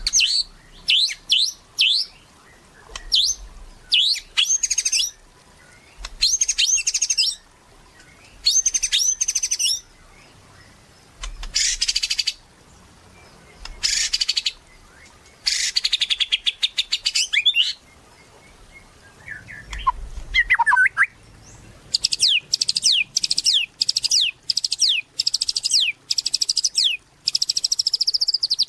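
White-rumped shama singing: loud, varied phrases of high whistles, glides and rapid trills, separated by short pauses, with a lower warbled phrase about two-thirds of the way through and a long run of quickly repeated notes near the end.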